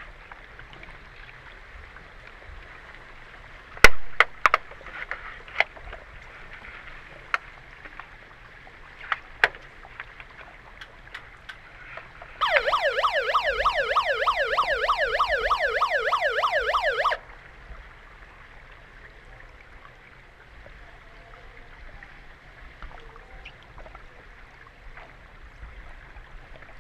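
Underwater hockey referees' underwater siren sounding for about five seconds, a fast rising-and-falling warble several times a second, the signal that stops play. Before it, sharp clicks and knocks from about four seconds in, over a steady underwater hiss.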